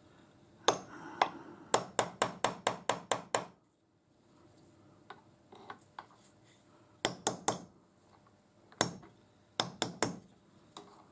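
Small hammer tapping on a steel punch set against a ball bearing's inner race, seating the bearing in a lathe live centre. Sharp metallic taps: a quick run of about eight, roughly five a second, a couple of seconds in, then scattered groups of two or three.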